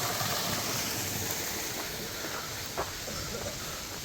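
Waterfall rushing, a steady even roar of falling water, with one short click near the three-second mark.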